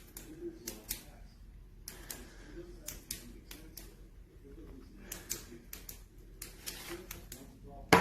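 Small flashlight's push-button switch clicked over and over in irregular runs. The light is flickering and won't stay on, so the switch is being pressed repeatedly: an intermittent fault that the owner calls very erratic.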